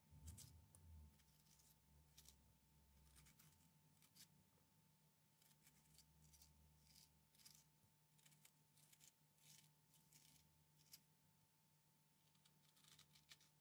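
Faint, repeated short scrapes of a dessert spoon digging the flesh out of a halved potato, over a faint steady hum.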